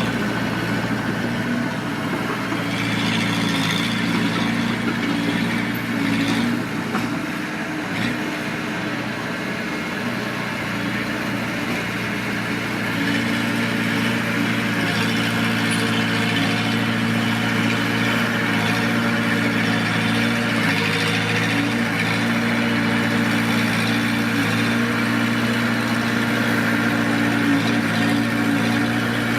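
Mitsubishi D20 crawler bulldozer's diesel engine running steadily, easing off slightly for several seconds about a quarter of the way in, then picking back up.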